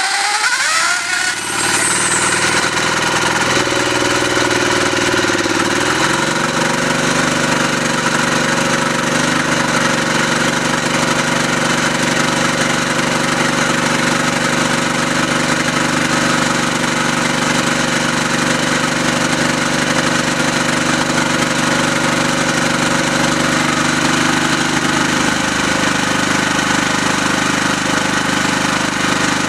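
Portable generator engine fitted with a biogas conversion kit, running just after being started. Its speed shifts during the first few seconds and then settles into a steady run, with a small change in its note near the end.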